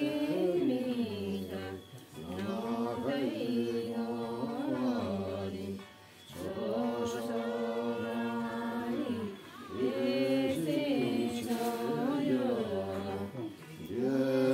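Unaccompanied voices singing a slow, chant-like song in long held phrases, with a short break for breath every three to four seconds.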